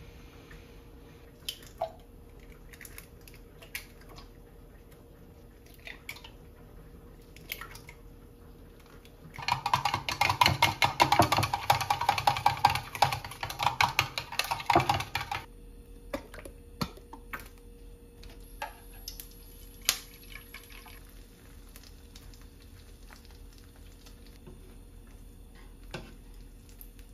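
Chopsticks beating eggs in a glass measuring cup: a rapid clatter of clicks lasting about six seconds, starting about nine seconds in, with scattered single taps and clicks before and after.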